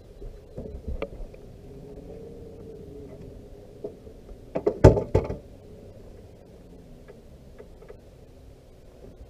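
Knocks and clatter on a fishing boat's deck as a hooked fish is brought in with a landing net, loudest in a burst of knocks about five seconds in. A low, steady hum runs underneath.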